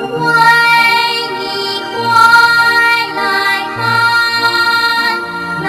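Children's song: a voice singing a melody over light instrumental accompaniment.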